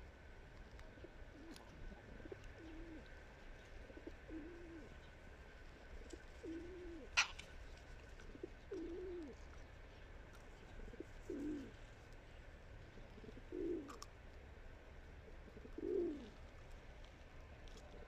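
A pigeon cooing, a low call of about half a second repeated every two seconds or so and growing louder later on. A single sharp click comes about seven seconds in.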